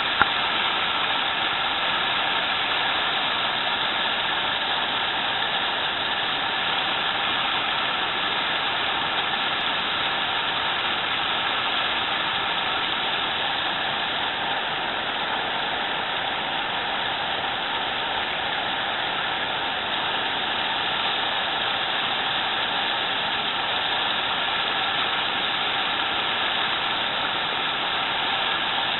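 Fast stream running over rocks in shallow rapids: a steady rush of white water.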